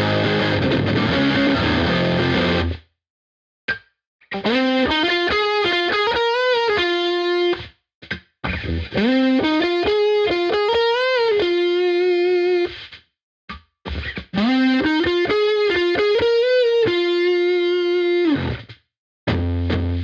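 Epiphone Les Paul Black Beauty electric guitar played through heavy distortion. It opens with about three seconds of full chords, then plays a single-note lead phrase with string bends ending on a held note, three times over, each cut off sharply into silence.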